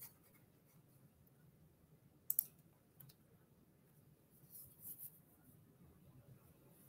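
Near silence broken by a sharp double click about two and a half seconds in and a fainter click about half a second later.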